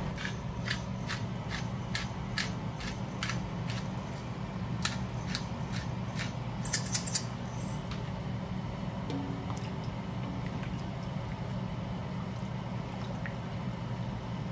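A pepper grinder being twisted over the pan, a steady run of sharp clicks about two to three a second, then a few more and a brief bright cluster about seven seconds in. A steady low hum runs underneath.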